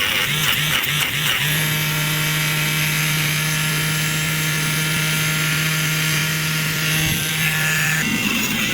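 Small handheld electric rotary tool (mini drill) whirring. It gives a few short on-off bursts, then runs steadily for about six seconds and stops about eight seconds in.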